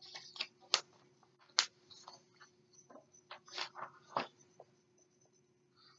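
Paper-and-cover handling noise from a picture book being lowered and its pages leafed through: scattered soft clicks and rustles, a few sharper taps, over a faint steady hum.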